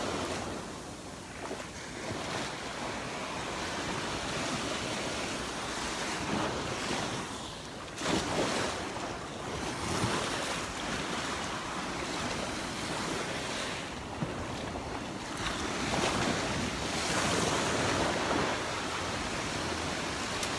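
Gulf of Mexico surf washing onto the beach in irregular swells, with wind blowing on the microphone.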